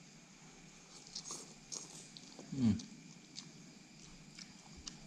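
A person eating hot noodle soup: slurping noodles in and chewing, with small wet clicks, and a short low 'mm' from the eater about two and a half seconds in.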